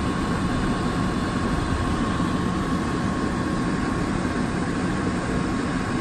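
Air handler blower fan with a Genteq X13 motor running steadily, a constant rush of air with a faint steady high hum. The owner blames a failing X13 motor module for keeping this fan running constantly.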